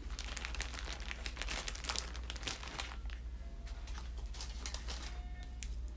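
Packaging crinkling and rustling as it is handled, a dense run of crackles that thins out about halfway through.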